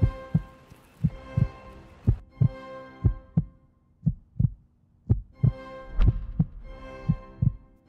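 Cinematic intro music: a sustained synth drone with heartbeat-style double thumps about once a second. The drone drops away briefly past the middle, leaving only the thumps.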